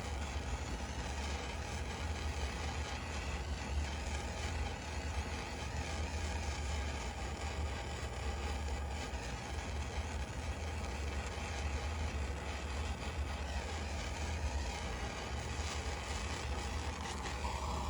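Wood lathe running steadily with a low hum while the bowl is sanded.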